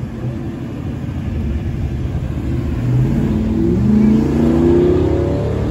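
A car engine revving repeatedly, its pitch climbing in short rising runs from about halfway through and getting louder, over a low steady rumble.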